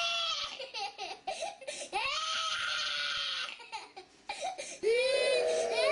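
A toddler crying hard, with short rising-and-falling cries and one long held wail about two seconds in. There is a brief break near four seconds, then a louder cry near the end.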